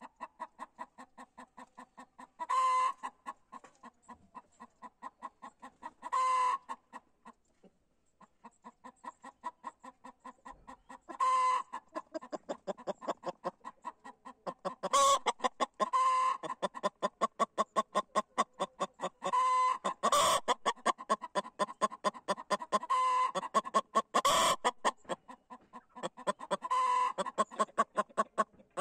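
Hen cackling its egg song on the nest: a long run of short, quick clucks, about three a second, broken every few seconds by a louder, drawn-out call. The cackle comes with laying an egg.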